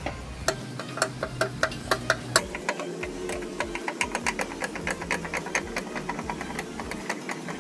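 Scissor jack being lowered by cranking its screw counterclockwise with a hooked jack handle: a steady run of clicks with each turn, speeding up to about five a second a couple of seconds in.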